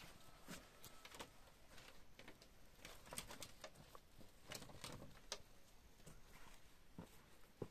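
Faint, scattered footsteps and light taps at close range, with little else above near silence.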